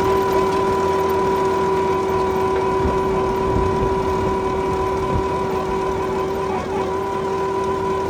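Trencher's diesel engine running steadily under load while digging, with a constant whine over a low rumble.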